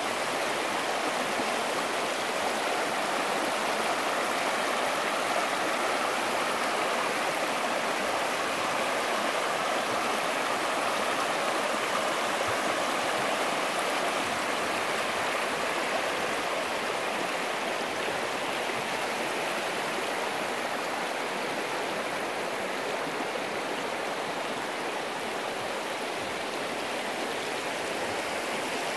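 Shallow river riffle: water running steadily over a stony bed, an even rushing sound.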